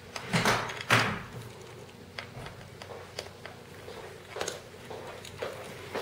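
A small screwdriver working a screw in a laptop's hard-drive bracket. Two louder knocks come about half a second and a second in, followed by scattered light clicks and scrapes of the tool on metal and plastic.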